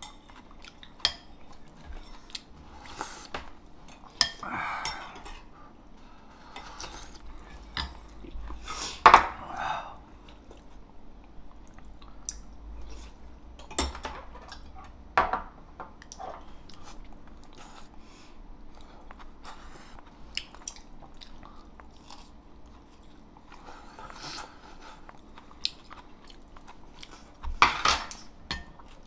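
Eating at a table: chewing and crunching green onion kimchi, with a spoon and metal chopsticks clicking against a ceramic bowl now and then. The sharpest clicks come about nine seconds in and near the end.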